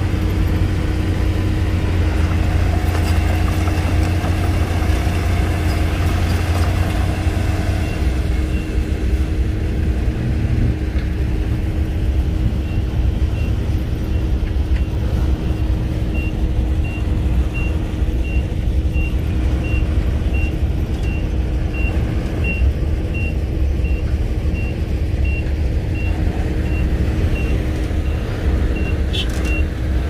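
Shantui crawler bulldozer's diesel engine running steadily under load as it pushes soil and stone, with a heavy low rumble. From about twelve seconds in, a reversing alarm beeps steadily, about one and a half times a second, until near the end.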